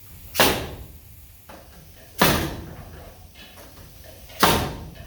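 Three heavy blows about two seconds apart, each ringing out briefly, as a wooden brace is fastened to a building pole.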